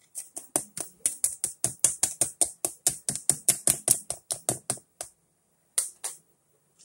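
A utensil tapping fast against a plastic food container as boiled eggs are chopped into tuna salad: an even run of about five sharp taps a second for some five seconds, then two more taps near the end.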